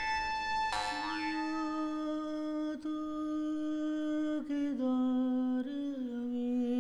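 Music from the live dance score: after a sustained instrumental tone, a single voice hums long held notes from about a second in, stepping down in pitch a few times, with a slight waver near the end.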